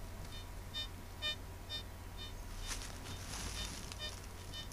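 Deeptech RG750 Vista metal detector giving short high beeps, about two a second with a brief pause in the middle. They are its target signal as a 10 mm silver coin passes over the search coil.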